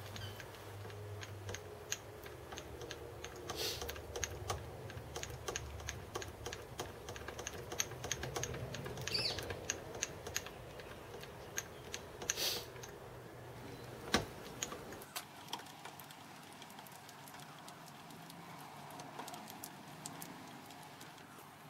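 Handwheel of a home-built Gingery milling machine being cranked by hand, running the table along its leadscrew: a stream of light, irregular clicks and ticks, with a sharper knock about 14 seconds in. The clicking thins out and the sound grows quieter after about 15 seconds.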